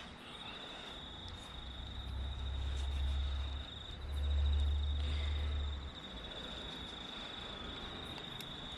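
A cricket trilling steadily at a high pitch, with two spells of low rumble about two and four seconds in.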